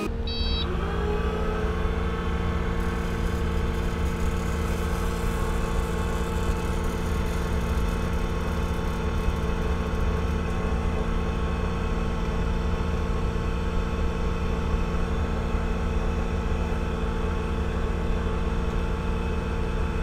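Compact track loader's engine running steadily, powering the Vacuworx SL2 vacuum lifter's hydraulically driven vacuum pump as it draws vacuum on the lifting pad, with a steady low drone.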